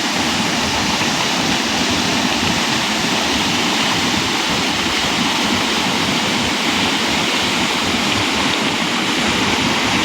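Waterfall rushing, a loud steady roar of falling water with no let-up.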